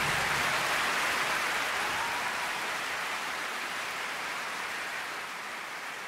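Mountain stream rushing over rocks: a steady hiss of water that slowly fades.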